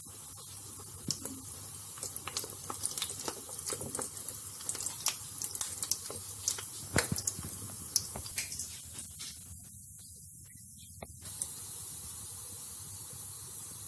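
Olive oil deep-frying balls of lachha semai pitha, sizzling with a steady hiss and many sharp crackling pops. The popping thins out after about eight seconds, leaving a steadier hiss.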